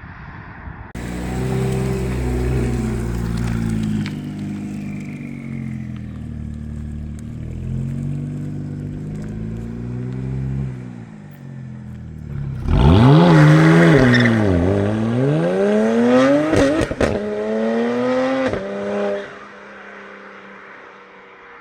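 BMW E92's N54 twin-turbo inline-six exhaust on a rolling drive. It cruises with a steady note, then about halfway through turns much louder, with the pitch swinging sharply up, down and up again for several seconds as the engine revs, before it drops back to a quieter run near the end.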